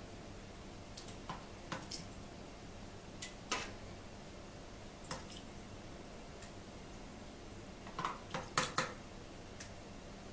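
Metal ladle clinking and scraping against the side of a speckled enamel pot as it scoops thick quince jam, in scattered clinks with a quick cluster of four about eight seconds in.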